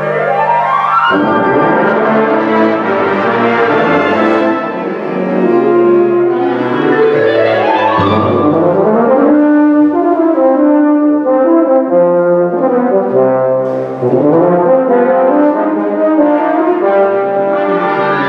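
Concert wind ensemble playing, with sustained brass chords and fast upward runs that sweep up at the start, again about seven seconds in, and near the end.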